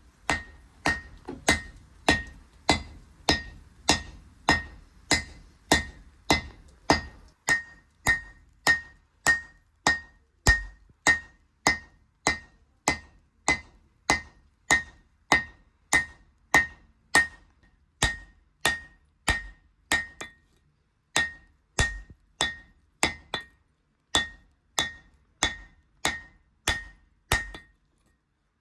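Hammer blows on steel over an anvil while forging a spade-bit knife blank, in a steady rhythm of about two blows a second. Each blow has a bright metallic ring, and there are two short pauses in the last third.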